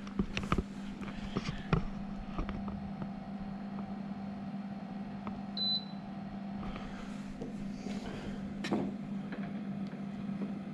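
Steady low hum of a running portable compressor fridge, with a few sharp clicks of handling in the first two seconds and a single short high electronic beep about five and a half seconds in, as a setting is keyed in.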